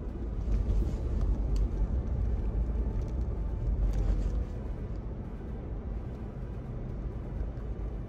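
A car driving: a steady low rumble of engine and road noise, a little louder for the first four seconds or so.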